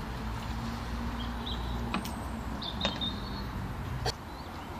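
Outdoor background rumble with a faint hum, a few sharp clicks, and small birds chirping briefly; the rumble drops away about four seconds in.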